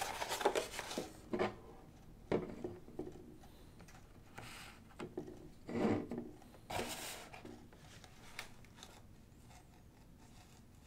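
Handling noise of an AMD Wraith Stealth stock CPU cooler on a desk: irregular rubs, scrapes and light knocks as it is picked up, turned and set back down.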